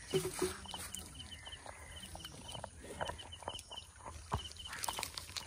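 Outdoor ambience with a bird chirping in short high notes that repeat in twos and threes. There are a couple of short low calls just after the start, and scattered small knocks and clicks.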